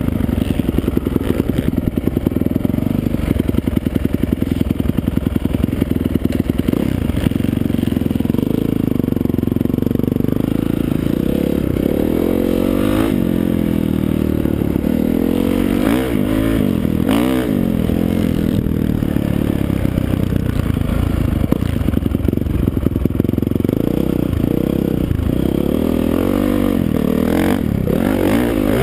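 Honda CRF450 dirt bike's single-cylinder four-stroke engine, heard from the rider's helmet, running at low revs for the first several seconds, then revving up and down repeatedly as the bike is ridden around the track.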